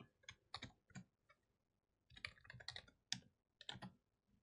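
Faint computer keyboard typing: a few keystrokes, a pause, then a second run of keystrokes starting about two seconds in, as commands are entered into a serial terminal.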